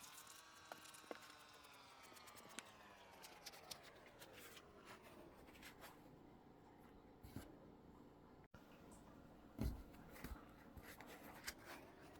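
Faint crackles and soft clicks of a foam squishy toy being squeezed and handled, with a faint tone that slides slowly down in pitch and then starts rising again near the end.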